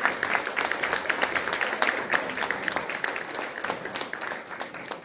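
Audience applauding: many hands clapping in a dense patter that fades toward the end.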